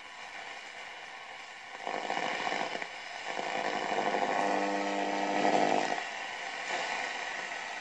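VEF Spidola 230-1 transistor radio giving out hiss and static from its speaker. About two seconds in, a buzzing signal with a steady hum comes through; it grows louder and drops back about six seconds in.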